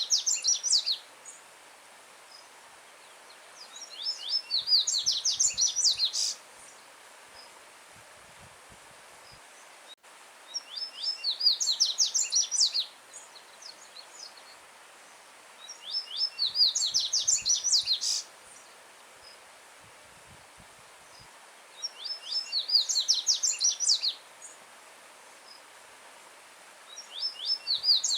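Coleiro-baiano (yellow-bellied seedeater) singing loud, repeated song phrases: about every six seconds a fast run of clear, high notes lasting around two seconds, five phrases in all. A faint, steady rush of a stream over stones runs underneath.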